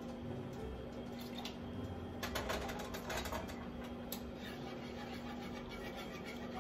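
Kitchen utensils clicking and scraping against nonstick pots while hot milk is spooned into the egg mixture, with a quick run of rapid clicks lasting about two seconds a couple of seconds in. A steady low hum sits underneath.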